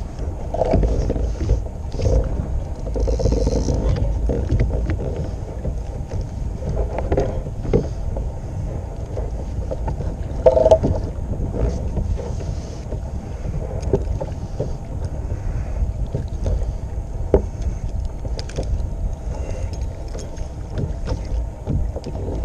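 Wind buffeting the microphone and water slapping against a kayak hull, with scattered small knocks and clicks.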